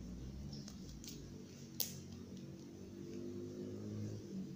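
Light clicks and taps of objects being handled, one sharper click about two seconds in, over a faint low hum.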